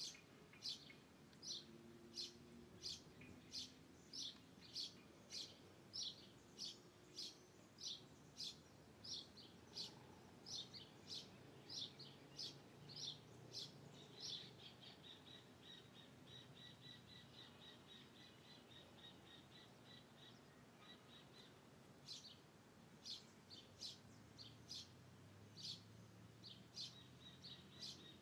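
Bird chirping: a short, high chirp repeated about twice a second, giving way about halfway through to a faint, fast, even high-pitched trill, before the chirps start again near the end.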